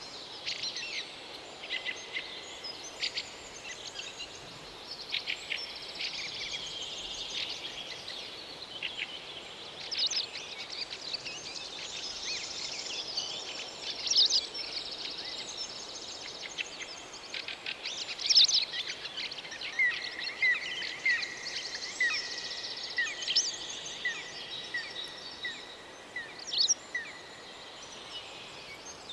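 Birds chirping and calling over a steady high-pitched hiss, with many short sharp notes. In the second half one bird repeats a short note about once a second for several seconds.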